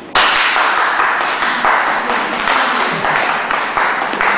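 Applause from a small audience: many hands clapping, starting suddenly just after the start and carrying on densely.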